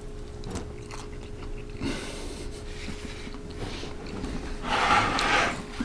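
A man chewing a mouthful of roast chicken, with a noisy breath through the nose about five seconds in, over a faint steady hum.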